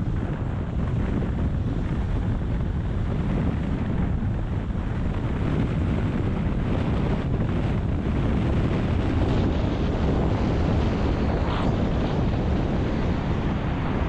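Steady low rumble of a car driving, road and engine noise, with wind buffeting the microphone.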